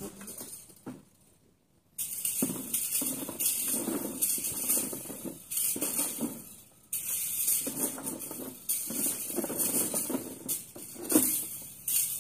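A rake scraping through gravelly soil and concrete rubble in repeated strokes, starting about two seconds in.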